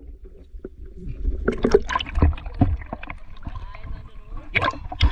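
Water splashing and sloshing up close over a low rumble, with faint voices in the background.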